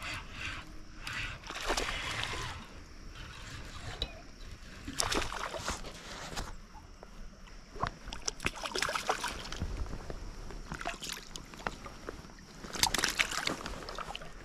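Hooked smallmouth bass splashing and thrashing at the water's surface in several bursts as it is reeled in, the loudest splashes near the end as it is brought to hand.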